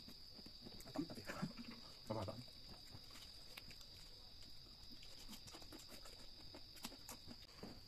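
Quiet eating by hand: soft chewing and mouth sounds with scattered small clicks, and a brief murmur about two seconds in, over a steady high-pitched whine.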